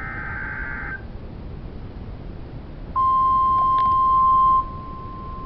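NOAA Weather Radio EAS digital header burst, a harsh one-second warble, ending about a second in. About three seconds in, the steady 1050 Hz weather radio warning alarm tone comes on loud, drops in level after a second and a half and keeps sounding, signalling a new alert-toned warning.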